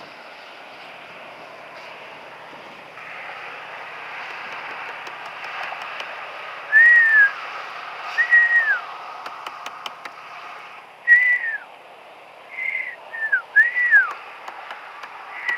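A person whistling short notes, each rising slightly then dropping away, about half a dozen of them starting about seven seconds in and coming closer together near the end. The whistling is a call to draw dolphins closer to the kayak.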